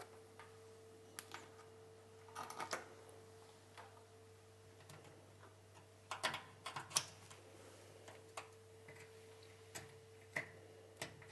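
Faint, irregular clicks and taps of a new rubber oven door seal's hooked teeth being pressed into the holes in the door, in small clusters, over a steady faint hum.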